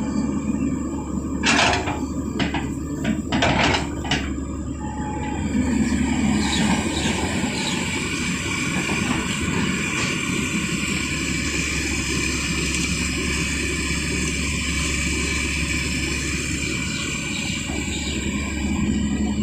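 Backhoe loader's diesel engine running steadily, with a few sharp knocks in the first four seconds or so.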